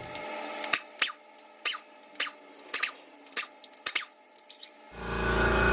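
About ten sharp metallic clicks at irregular half-second gaps from wrench work on the engine's flywheel bolts. A steady motor hum with a low drone starts near the end.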